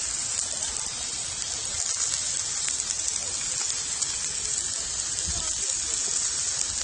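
Sliced meat sizzling on a small camp-stove grill plate: a steady high hiss with fine crackling.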